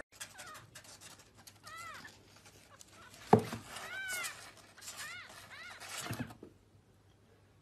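Young kitten mewing, about four high, thin cries that rise and fall in pitch. A sharp thump comes a little before the middle and is the loudest sound, with a softer thump near the end.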